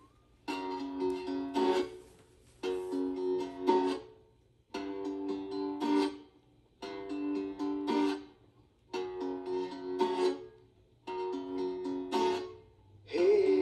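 Americana record playing on a portable turntable: an acoustic plucked-string instrument repeats the same short phrase about every two seconds, with brief gaps between phrases. A singing voice comes in at the very end.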